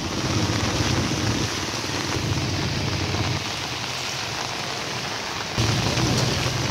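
Heavy rain falling steadily, an even hiss, over a low rumble that grows louder about five and a half seconds in.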